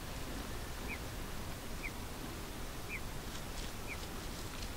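Rock ptarmigan giving short, high, down-slurred peeping calls about once a second, over a steady low background hiss.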